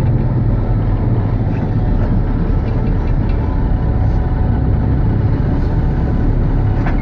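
Truck engine running steadily, heard from inside the cab as the truck rolls slowly forward in a line of grain trucks.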